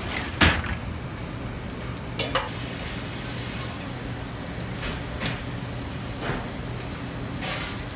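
Vegetables and chicken paillard sizzling on a hot grill over a steady low hum, with metal tongs clacking against the grill grates as pieces are turned: one sharp clack about half a second in, then several lighter clicks.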